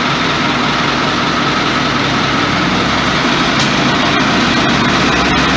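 Diesel engine of a new 80-horsepower Ford 5880 tractor idling steadily just after starting.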